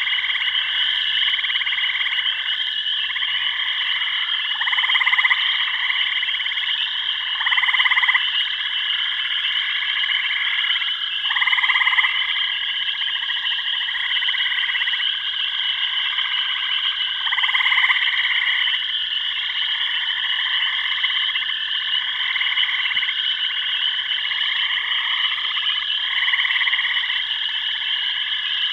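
Dense chorus of frogs calling: a continuous high trill, with louder croaking calls, each about half a second to a second long, repeating every second or two.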